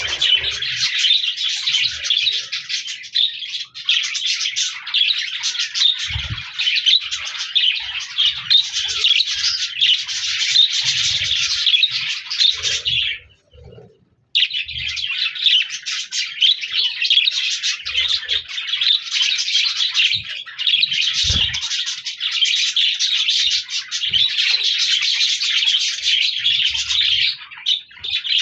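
A flock of budgerigars chirping and warbling together in a dense, continuous chatter, which breaks off for about a second near the middle.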